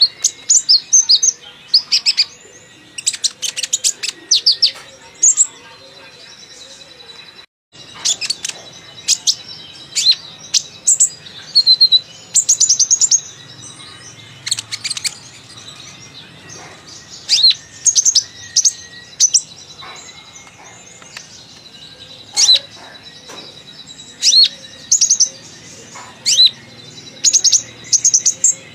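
Kolibri ninja sunbird singing: bursts of rapid, high, thin chirps and twitters, chatty and varied as the kicau-mania keepers want it, with its mimicked phrases coming out. The song breaks off for a moment about a quarter of the way in.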